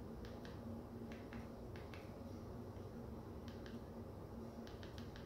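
Fire TV remote buttons being pressed to step through menus: about a dozen small, faint clicks, mostly in quick pairs, with a steady low hum behind them.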